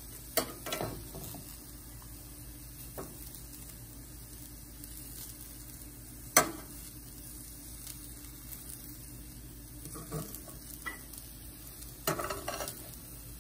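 Fried rice sizzling in a stainless-steel pan while a metal spatula stirs and scrapes through it, with a few sharp clacks of the spatula against the pan, the loudest about six seconds in and several more near the end.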